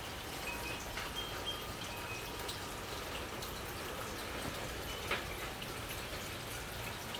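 Steady rain with scattered drips ticking, and one louder tick about five seconds in.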